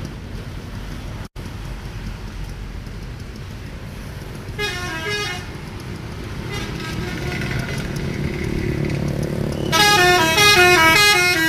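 Multi-tone 'telolet' bus horn playing quick runs of stepped notes over a steady low rumble of bus engines and traffic. A short run comes about four seconds in, and a longer, louder tune near the end.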